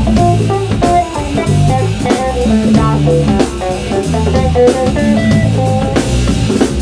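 Live band playing: electric guitar carrying a lead line of quick single notes over electric bass and drum kit.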